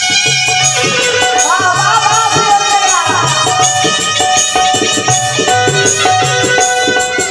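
Live Bhojpuri folk stage band playing an instrumental passage: a steady percussion rhythm with a melody line over it.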